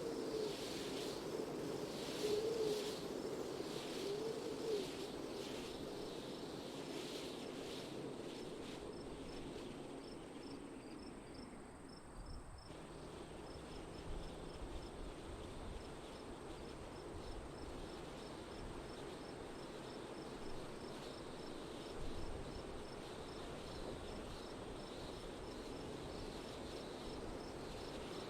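Wind blowing in soft gusts, with a faint, even high-pitched chirping of insects, a few chirps a second.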